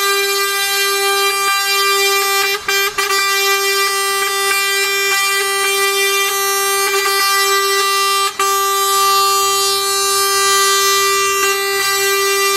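Truck air horn sounded in a long, steady blast on one unchanging note, cut briefly twice about two and a half seconds in and once more a little past the middle.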